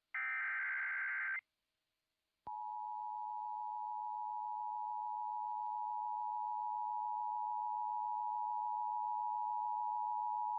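Emergency Alert System broadcast alert: the last short burst of the SAME digital header's screechy data tones, a second of silence, then about two and a half seconds in the steady attention tone of two close pitches starts and holds. It signals that a warning message, here a severe thunderstorm warning, is about to be read.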